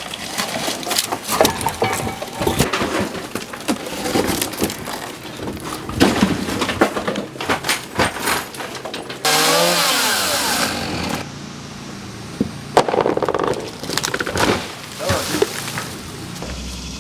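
Repeated knocks and cracks of material being broken apart, with a power saw running for about two seconds roughly nine seconds in. A low steady hum comes in near the end.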